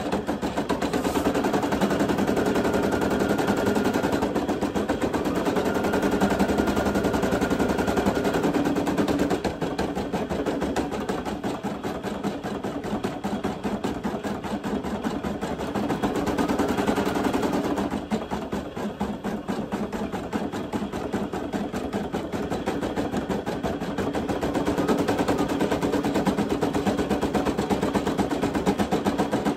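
Brother PE800 embroidery machine stitching a design into a T-shirt: a fast, even rattle of needle strokes that changes in tone now and then as the hoop moves.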